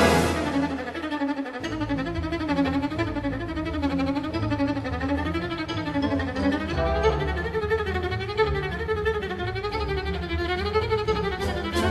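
Music: a slow melody with a wide, wavering vibrato over a steady low accompaniment.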